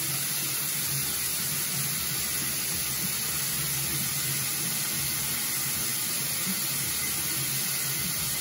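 Bathroom faucet running steadily into the sink, an even hiss of water.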